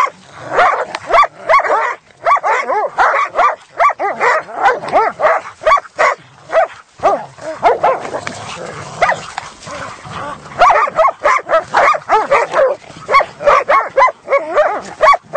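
Several hunting dogs barking, yelping and whining in a rapid, overlapping string of short calls as they crowd around caught quarry, with a brief lull about halfway through.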